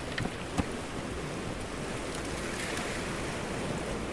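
Steady wash of sea waves with some wind, and a few sharp clicks in the first second.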